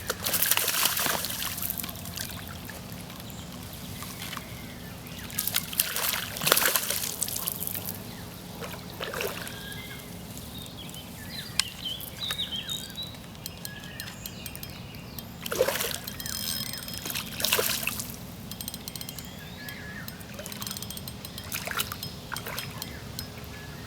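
Water splashing and dribbling in short bursts, about half a dozen times, with quieter trickling in between.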